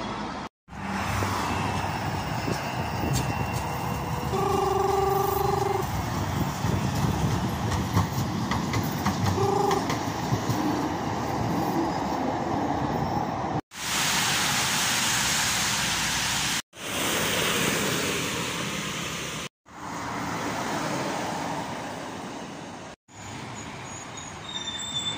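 Road traffic passing on a busy street, with a Manchester Metrolink tram running by; a horn sounds for about a second, then briefly again a few seconds later. Near the end a tipper lorry drives past. The sound drops out briefly several times.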